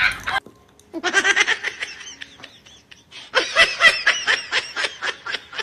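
A person laughing in rapid short pulses: a brief burst about a second in, then a longer stretch of laughter from about three and a half seconds on.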